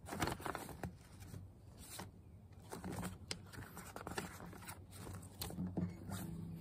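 Soft rustling and scattered light clicks of handling noise, as pages or cloth are moved, with a faint low hum coming in near the end.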